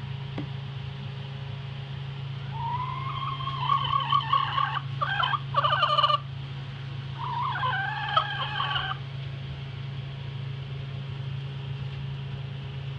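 Laying hen in a nest box making drawn-out calls in two bouts as she lays her egg, over a steady low hum.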